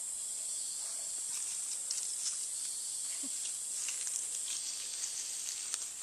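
Steady high-pitched drone of insects, with scattered faint clicks and rustles.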